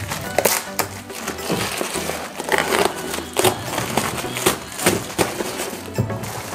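Packing tape being pulled and torn off a taped cardboard parcel, with its plastic wrapping crinkling, in a string of short, irregular rips and crinkles. Background music plays underneath.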